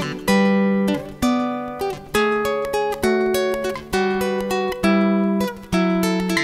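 Background music: acoustic guitar strumming chords, a new strum about once a second, each chord ringing on until the next.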